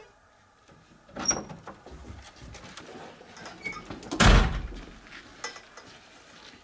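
A door clicking open about a second in, then small clicks and knocks of a wheeled cleaning trolley being pushed, and one loud thump a little past halfway.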